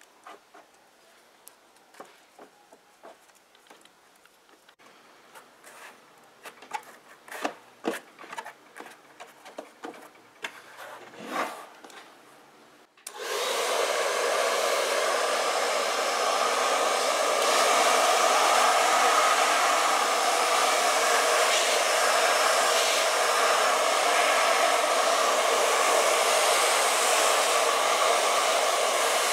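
Scattered light taps and rustles of leather and a glue brush being handled. About halfway through, a handheld hair dryer starts abruptly and blows steadily, heating leather being stretched over a car door panel.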